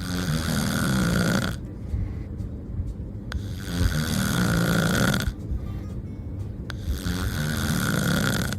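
Loud snoring: three long breaths about three and a half seconds apart, with quieter gaps between them.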